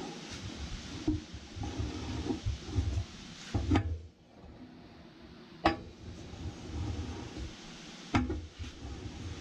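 A sleeve puller being worked to draw a new cylinder sleeve into a 1942 Farmall H cast-iron engine block: handling noise and metal-on-metal sounds, with three sharp metallic clicks about two to two and a half seconds apart.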